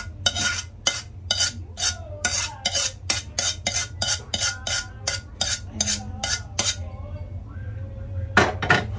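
Metal spoon scraping and knocking against a cooking pan, about three or four strikes a second, as thick sauce is scraped out. It goes quiet for a moment, then strikes twice more, louder, near the end, over a steady low hum.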